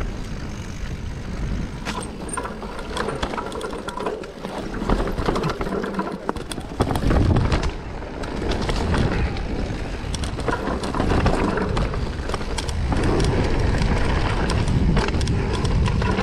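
Mountain bike rolling down a dirt singletrack: tyres crunching over dirt and roots, with frequent rattles and clicks from the bike and a steady low rumble of wind on the microphone.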